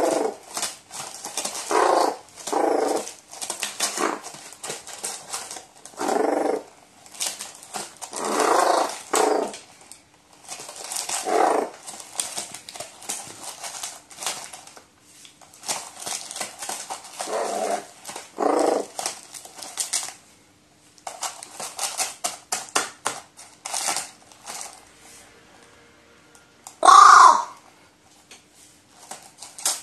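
A pet crow making repeated bouts of excited, rolling 'gorororo' rattle calls, with its beak pecking and crinkling a paper balloon between them. About 27 s in comes one loud, clear 'wow!'-like call, the loudest sound.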